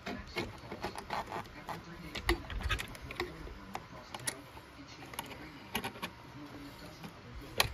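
Irregular small clicks and taps of a hose being handled and pressed into plastic clips on a generator's plastic bracket, with a louder knock about two seconds in and another near the end.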